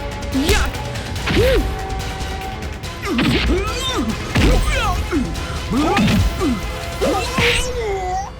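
Staged fight sound effects: a run of hard whacks and crashes, about five of them, over background music.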